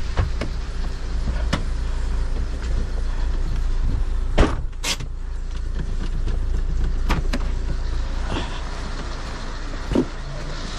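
A vehicle heard from inside: a steady low rumble from the engine and road, with several sharp knocks and rattles. The loudest knocks come about four and a half and five seconds in.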